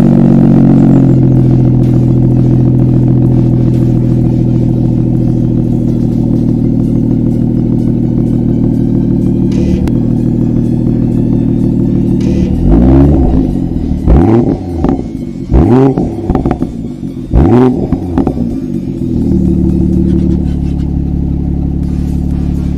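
BMW 240i's turbocharged straight-six idling through an M2 exhaust, then blipped about five times in quick succession, each rev shooting up and falling back, before settling back to a steady idle.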